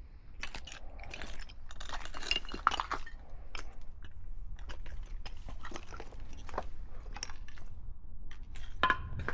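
Footsteps crunching over rubble and debris, a run of irregular crunches with the odd clink, over a steady low rumble.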